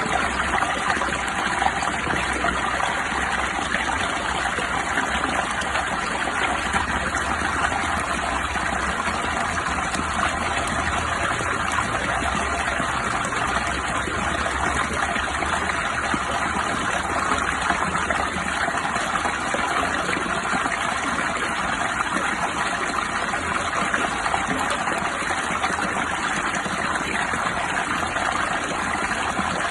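Steady rushing water, an even hiss that runs on without breaks or changes.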